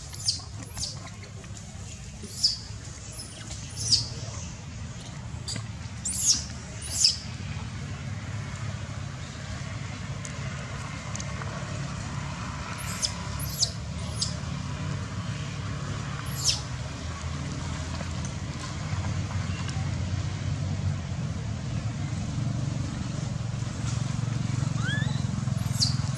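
Infant macaque giving short, very high squeals that fall steeply in pitch, in quick clusters, as an adult macaque grabs and pins it: distress calls. A low steady rumble runs underneath and grows louder toward the end.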